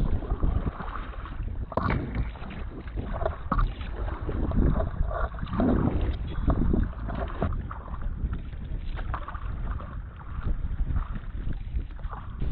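Canoe paddle strokes splashing on choppy water, with water slapping the hull, over a steady low rumble of wind on the microphone.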